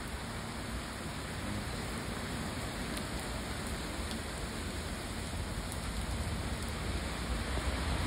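Steady rain falling on garden foliage, an even hiss with a low rumble underneath.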